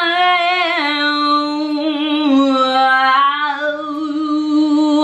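A woman singing long held notes, one voice alone without accompaniment: a note held for about a second, then a step down to a lower note that sags slowly lower and is held for about four seconds before cutting off sharply at the end.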